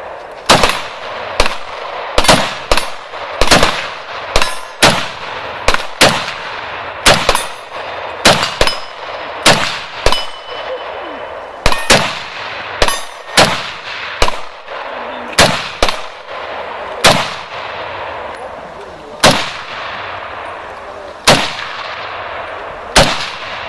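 Century Arms C308 Sporter, a semi-automatic .308 rifle, firing a long string of about two dozen shots at an uneven pace, sometimes two or three in quick succession, sometimes with a second or two between them, each shot echoing briefly.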